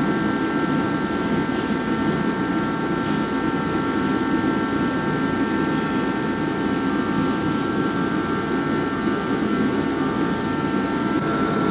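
Steady whir of a large fan or shop air-moving equipment, unchanging throughout, with a few faint constant tones above the rush of air.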